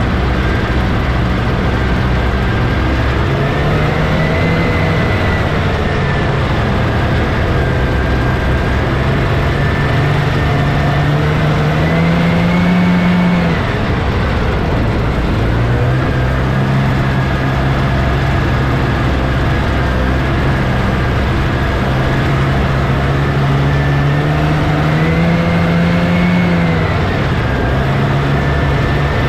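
1979 Scorpion Whip snowmobile's Cuyuna 440 two-stroke twin running under way along the trail, heard close from the sled. Engine speed climbs and eases repeatedly, dropping off sharply about halfway through and again near the end before picking back up.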